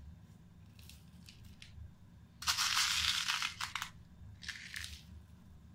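Slow-release fertilizer granules being poured into an orchid pot, a rustling, crunching burst of about a second near the middle, with a few shorter rustles before and after.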